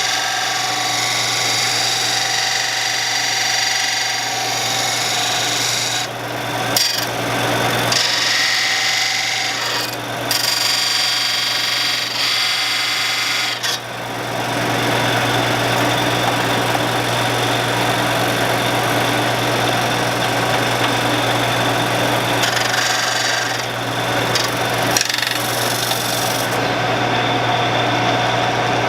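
Power grinder running steadily while a steel lathe turning tool is ground against it in a sharpening guide, a continuous grinding hiss over the motor's hum, broken by a few brief dips.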